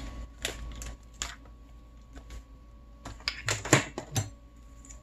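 Scattered light clicks and clatters of small tools and parts being handled on a workbench, with a quicker run of sharper clicks about three and a half to four seconds in.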